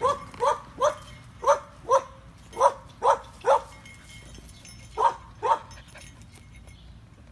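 A dog barking in short repeated barks: eight in quick succession over about three and a half seconds, then two more after a short pause.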